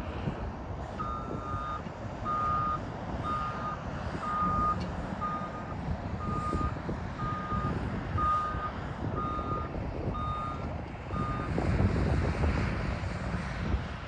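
Reversing alarm on a JCB 419S wheel loader, short beeps about once a second that stop shortly before the end, over the loader's diesel engine running underneath. The engine rumble grows louder near the end.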